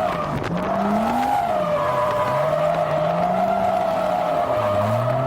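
Toyota Chaser JZX100 drift car's 1JZ straight-six revving up and down mid-drift, settling lower near the end, with the tyres squealing in a steady high tone, heard from inside the car.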